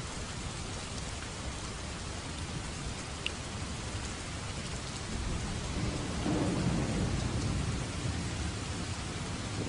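Steady rain falling, with a few single drops ticking. About six seconds in, a low rumble of thunder swells and fades over a couple of seconds.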